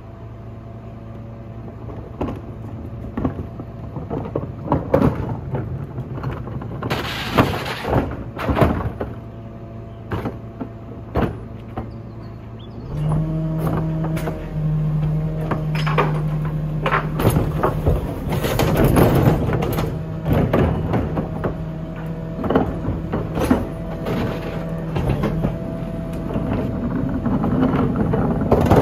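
Rear-loader garbage truck with its engine running steadily while plastic wheelie bins knock and clatter against it. About halfway through, the engine note steps up as the hydraulic bin lifter works, with a burst of clattering as the bins are tipped and emptied.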